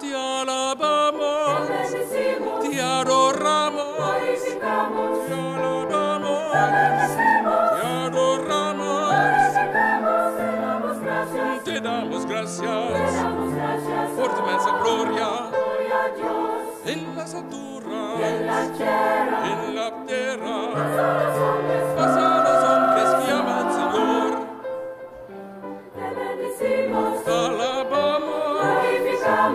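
A mixed choir singing, softening briefly about 25 seconds in.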